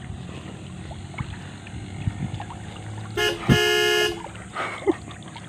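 A horn sounds once, a flat steady honk of about a second, a little past halfway through, over faint background noise.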